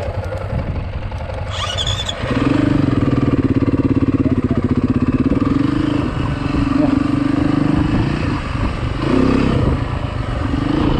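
Dirt bike engine pulling the bike up a sandy trail, picking up and getting louder about two seconds in, then running steadily with a few brief drops and changes in pitch as the throttle is eased and opened again.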